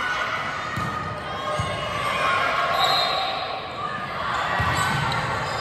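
Indistinct chatter of players and onlookers echoing in a gymnasium, with a few dull thumps on the wooden floor.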